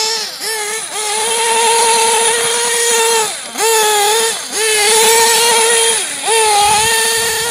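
LRP S8 BX 1/8-scale nitro buggy's small two-stroke glow engine running at high revs with a high-pitched whine. The pitch dips and climbs back about five times as the throttle is lifted and reapplied.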